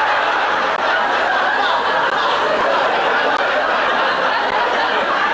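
Studio audience laughing, a loud crowd laugh that holds steady throughout.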